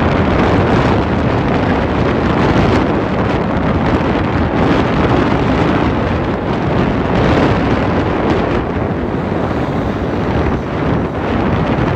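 Wind rushing and buffeting over the microphone of a scooter ridden at speed, a loud steady rumbling rush, with the scooter's running engine and tyre noise underneath.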